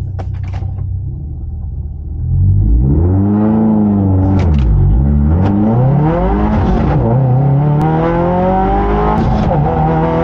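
2022 Subaru WRX's turbocharged 2.4-litre flat-four idling on the drag strip start line, then launching about two seconds in and accelerating hard, heard from inside the cabin. The engine note climbs through each gear and drops sharply at three upshifts.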